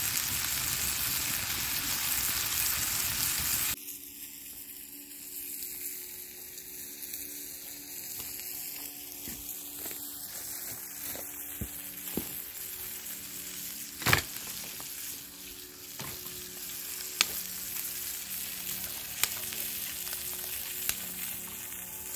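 Bacon frying in a pan over a campfire: a loud, steady sizzle that cuts off abruptly a few seconds in. A quieter stretch follows with scattered sharp pops and crackles, the loudest about halfway through.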